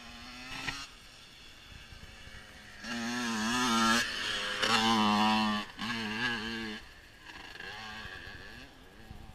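Honda dirt bike engine approaching, then passing close by and pulling away. It is loud for about four seconds in the middle, with its pitch rising and falling as the throttle is worked and a couple of brief cuts, then it fades into the distance.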